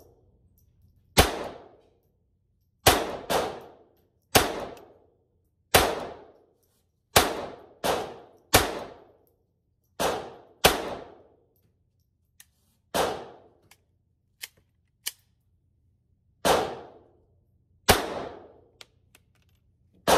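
Glock 44 .22 LR pistol firing a slow, irregular string of about thirteen shots, mostly one to one and a half seconds apart with a longer pause in the middle. Each shot has a short echo.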